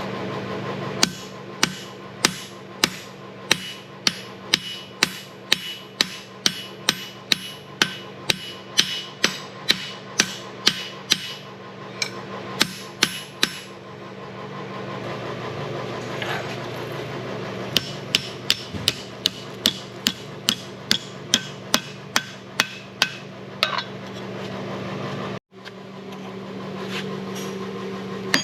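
Blacksmith's hand hammer striking hot mild steel on an anvil, about two ringing blows a second, in two runs with a pause of a few seconds between them. A steady low hum runs underneath.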